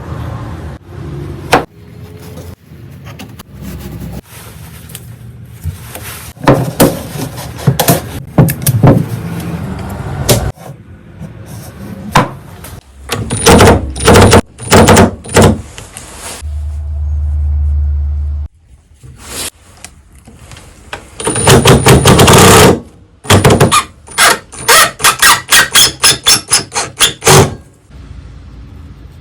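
Workbench sounds of woodworking: knocks and clatter of wood pieces and clamps, and bursts of a cordless drill-driver driving and backing out screws. Near the end comes a quick run of short bursts, about three a second.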